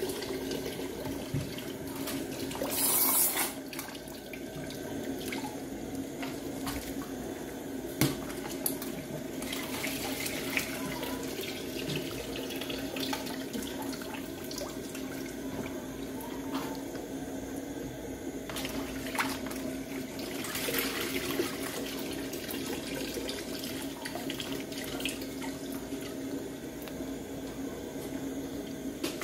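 Rice being washed by hand in a basin of water: water sloshing and splashing as the grains are worked and scooped out with a plate, with a few sharp knocks and a louder splash about three seconds in. A steady low hum runs underneath.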